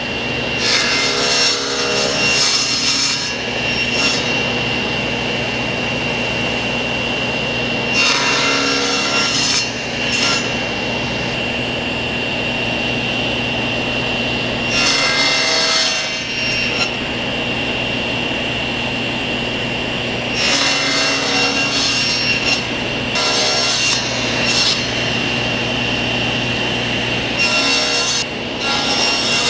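SawStop cabinet table saw running with a steady whine. Its blade makes a series of separate crosscuts that stop partway through a wooden board, each cut a burst of noise a second or two long, a few seconds apart. These are the evenly spaced kerfs for kerf bending.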